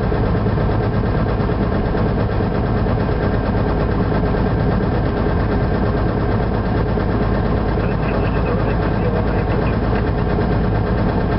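Beechcraft Bonanza's six-cylinder piston engine and propeller running steadily at low taxi power.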